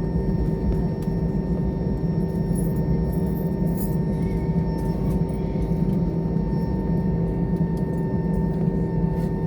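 Steady jet-engine rumble and hum heard inside an airliner cabin while the plane taxis after landing, with several constant tones held over a low roar and hiss.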